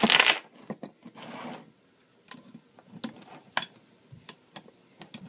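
Pliers working on a steel Bridger T3 dog-proof raccoon trap as its trigger is taken loose. A short clatter comes at the start, then scattered light metal clicks and ticks.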